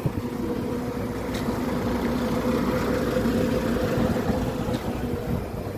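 A truck's engine idling steadily, a constant low hum with an even pitch.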